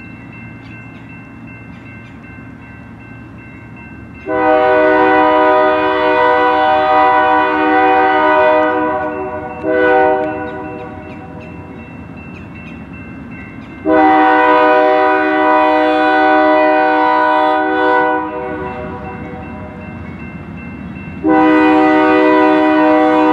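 Diesel freight locomotive's multi-chime air horn sounding for a grade crossing: a long blast, a short one, another long one, and a fourth long blast starting near the end, over the rumble of the approaching train. Before the horn begins, a crossing signal bell dings steadily.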